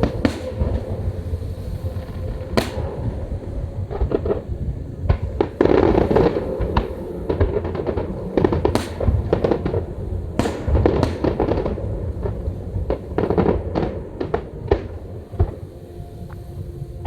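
Fireworks bursting in quick succession: many sharp bangs and cracks over a continuous low rumble, thickest through the middle.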